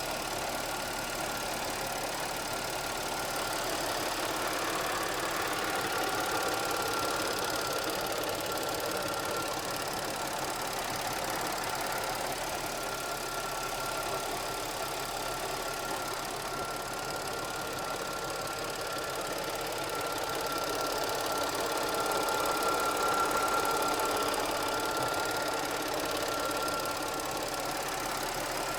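Audi 3.0 TFSI supercharged V6 running at idle from a cold start, with a steady high whine over a rattling, knocking sound. The owner asks whether this is the timing chain rattling.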